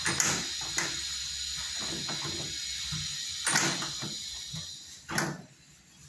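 Spanner working a transit bolt on the back panel of a front-load washing machine: a few sharp metallic clicks and knocks over a steady hiss. The bolts are being taken out that lock the drum in place for transport.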